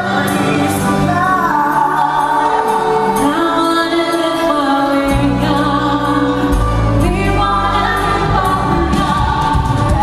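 Musical-theatre song number played loud over a theatre sound system: singing over a backing track, with a heavy bass beat coming in about halfway.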